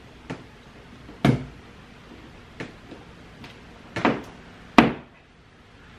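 A series of sharp knocks and taps as hands press and pat a self-adhesive foil-faced foam insulation liner onto the underside of a car's trunk lid. The loudest comes about a second in, and two more loud ones come close together later on.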